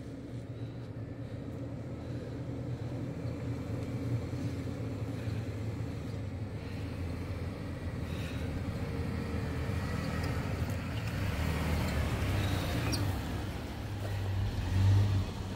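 Four-wheel drive's engine running as it climbs a steep dirt track, growing louder as it approaches and loudest about fifteen seconds in as it comes close.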